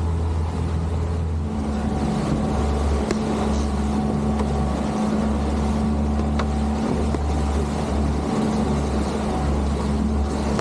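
Boat engine running steadily at trolling speed, a low even drone, with two faint ticks about three and six seconds in.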